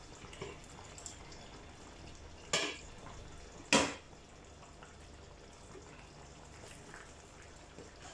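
Two sharp metallic clanks about a second apart, the second louder, from a utensil knocking against the aluminium cooking pot. They sound over a faint steady background.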